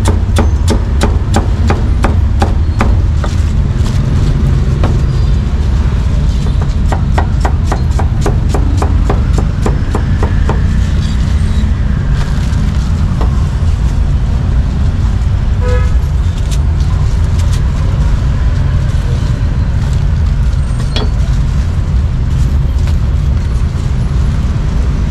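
A cleaver chopping pork on a chopping block in rapid strokes, about three a second, for the first ten seconds, then only now and then, over a steady rumble of street traffic. A short vehicle horn toot sounds about sixteen seconds in.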